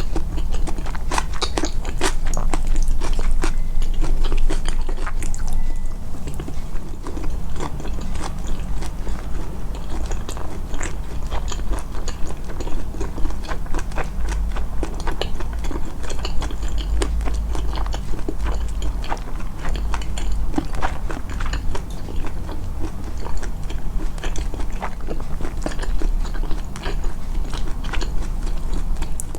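Close-miked chewing and biting of food: many quick, irregular crunchy and wet clicks with a steady low hum underneath.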